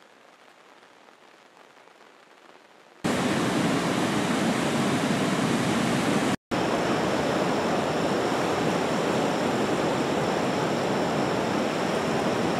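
Loud, steady rushing of a swollen, storm-flooded river pouring over a weir, cutting in abruptly about three seconds in after a faint hiss, with a brief break about six seconds in.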